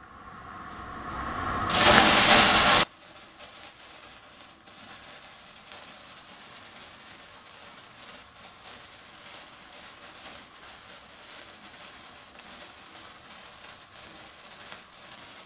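A sparkler held to a candle flame catches and burns with a steady crackling fizz. Before that, a sound swells for about two seconds into a loud rushing hiss that cuts off suddenly.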